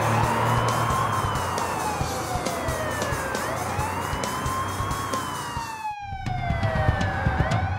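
Cartoon ambulance siren sound effect, two overlapping wails slowly rising and falling about every four seconds, over background music. It cuts out briefly about six seconds in, then carries on.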